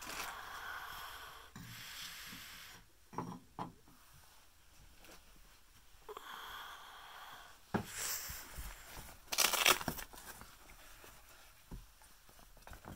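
Quiet handling noise: a few soft knocks, then rustling and crinkling as a cardboard box of padded reel cases is rummaged through, loudest in two short bursts around eight and ten seconds in.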